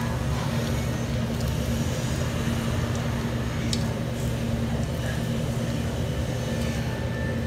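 Steady low machine hum of commercial kitchen equipment, with a brief faint click a little past the middle.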